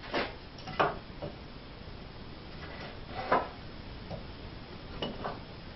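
Wooden hand-screw clamp and 2x4 lumber knocking and clattering as the clamp is set onto a board against a bench frame. About six short knocks, the loudest a little under a second in and about three seconds in.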